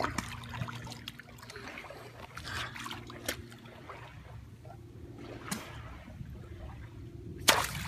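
Shallow lake water lapping and trickling around the camera, with scattered small ticks, a low steady hum underneath, and a sharp splash near the end as a hand grabs at a fish.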